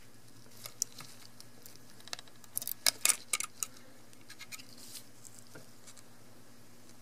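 Small clicks and crinkling as gloved fingers pry a flat ribbon cable's stiff-backed connector off a camera circuit board and unplug it. A quick run of clicks comes about three seconds in, with scattered single clicks before and after.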